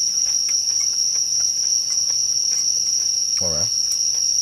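A steady, high-pitched chorus of night-singing insects, one continuous trill. About three and a half seconds in, a man gives a short hummed "mm" while eating.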